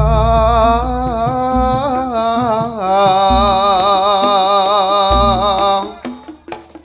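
A singer holding a long, wavering Javanese sung line over Reog gamelan accompaniment, with a deep low boom about every second and a half to two seconds. The voice stops near the end, leaving only a few light percussion taps.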